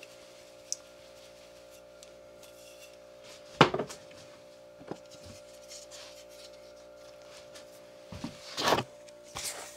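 Refrigerator humming steadily with several pitches, making what the cook calls an awful lot of noise. Over it come two loud knocks of kitchen things handled on a counter, a few seconds in and near the end, and a few light clicks.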